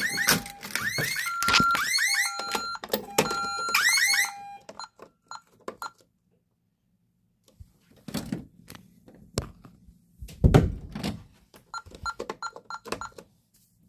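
A Honeywell Vista 20P alarm system sounds a fire alarm set off by a manual pull station: a loud repeating pattern of two alternating tones, one higher and one lower, with short rising sweeps over them. It stops about five seconds in. Then come keypad button presses with short beeps and a single thump about ten seconds in.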